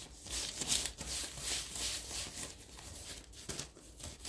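Baking parchment rustling and crinkling under hands cupping and shaping a floured ball of bread dough, in a string of soft swishes.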